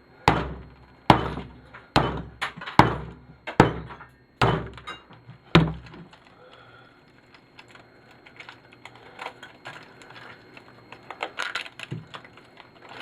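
Hammer blows on a TV's deflection yoke, knocking it apart: about eight sharp strikes in the first six seconds. After that come lighter clinks and rattles of loose pieces.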